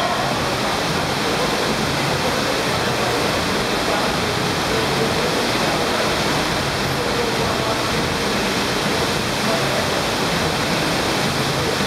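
Steady, loud rush of pumped water from an indoor sheet-wave surf simulator, a thin sheet of water pouring up and over the padded wave ramp.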